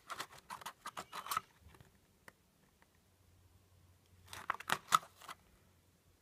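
Small cardboard box of firecrackers being handled: a short run of scraping and clicking as the lid is opened, then a second run about four seconds in as it is closed again.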